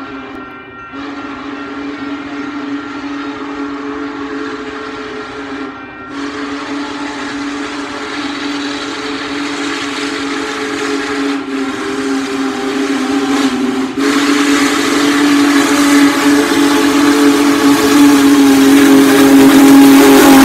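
Union Pacific 4014 'Big Boy' steam locomotive's whistle blowing long, steady blasts with short breaks between them, growing louder as the engine approaches. In the last several seconds the hiss and rumble of the locomotive itself rise under the whistle as it draws close.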